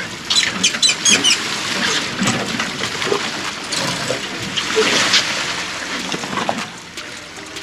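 Water splashing and sloshing as a hooked tuna thrashes at the surface beside the boat, with a cluster of sharp clicks in the first second or so.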